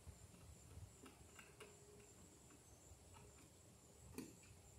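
Near silence, with a few faint clicks and taps from hands working at a light fixture overhead, one slightly louder click about four seconds in.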